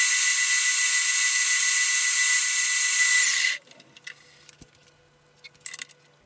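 End mill on a milling machine cutting steel: a loud, steady, high-pitched cutting whine with a strong whistling tone. It stops abruptly about three and a half seconds in, leaving only faint clicks and tinkles.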